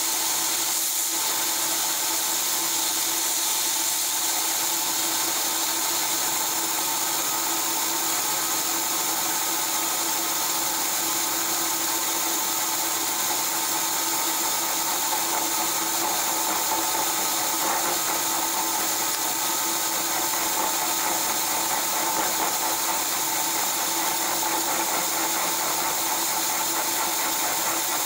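Milling machine running steadily as a Woodruff keyseat cutter cuts a key seat into the grinding arbor's shaft under coolant: an even hum with a few steady tones and a constant hiss.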